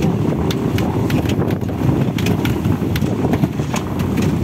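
Wind buffeting the microphone at sea: a loud, steady low rumble, with scattered light knocks and clicks over it.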